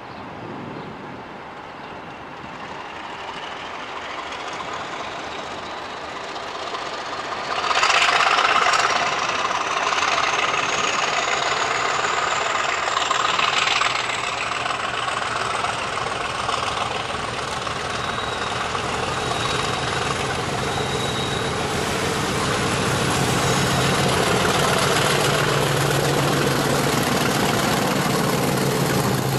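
British Rail Class 50 diesel locomotive with its 16-cylinder English Electric engine working as it draws close and passes, a whine climbing steadily in pitch over the first ten seconds. A loud surge of noise comes about eight seconds in, and a low steady engine drone takes over in the later part.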